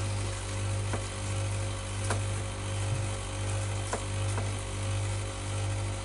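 Steady low hum with a hiss, swelling and fading gently about once a second. Over it are a few faint clicks and crackles from gloved hands peeling skin off a pheasant carcass.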